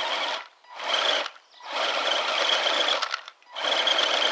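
RC crawler's 45-turn electric motor and gearbox whining in four on-off throttle bursts, one of them about a second and a half long, with short gaps between. It is straining against a heavy towed load that it cannot pull.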